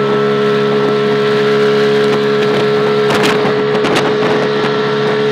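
Small auto-rickshaw engine running at a steady cruising speed, a loud even drone that holds one pitch, with a few short rattles about three and four seconds in.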